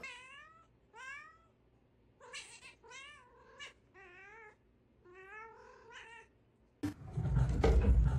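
A cat yowling in about eight drawn-out calls with a wavering, warbling pitch. Near the end a sudden, much louder rush of noise sets in.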